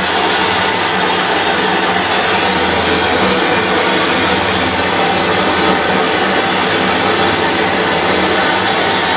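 Handheld gas torch burning with a steady hiss as its flame heats a copper pipe joint for soldering.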